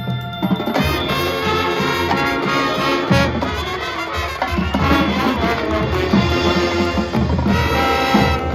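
High school marching band playing a full-ensemble passage of its show music. Drums and percussion lead, and the brass comes in loud about a second in. The band breaks off briefly near the end.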